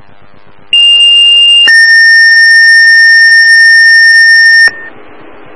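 Two-tone sequential fire-department pager alert over a scanner radio: a higher steady tone for about a second, then a lower tone held for about three seconds. It is the tone-out that sets off a fire company's pagers for the call.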